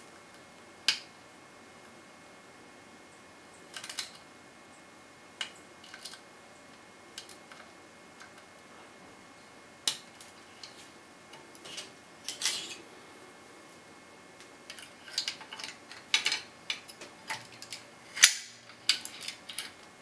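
Metal lock pick and tension tool working the pins of a worn pin-tumbler lock cylinder: irregular small clicks and scrapes, sparse at first and coming more often near the end, the loudest sharp click about eighteen seconds in.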